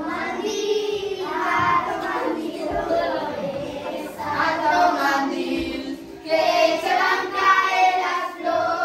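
Children's voices singing a song together in long phrases, with short breaks about three and a half and six seconds in.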